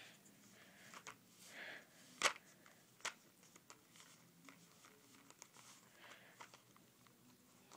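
Faint, scattered clicks and crinkles as a Pomeranian puppy noses and picks at dry kibble on a paper plate. Two sharper clicks come about a second apart partway through.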